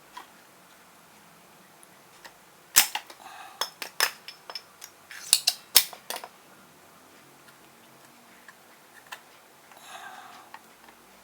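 Sharp clicks and light clattering of small hand tools on a TV's circuit board while a bulged capacitor is being taken out, about twenty clicks packed into the middle few seconds; two snaps are the loudest.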